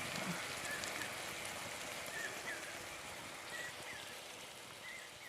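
Hot oil sizzling in a pan as prawns fry, a steady hiss that gradually fades. Faint short bird chirps sound now and then.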